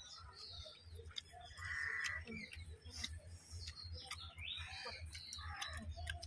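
A crow cawing a few times, the loudest call about two seconds in, over small clicks and smacks of hands mixing and eating rice.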